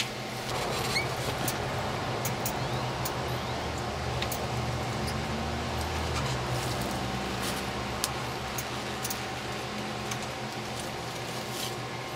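Scattered light clicks and rattles as a bicycle's rear wheel is worked free of the frame's dropouts. Under them runs a steady low hum, with a low rumble that swells through the first half.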